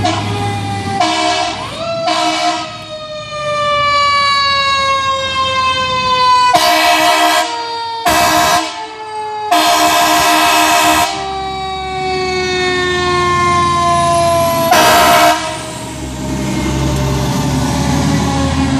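Fire truck siren winding slowly down in pitch, with about six loud air horn blasts over it, some short and some held for a second or more. Just after a second in, a siren rises quickly in pitch.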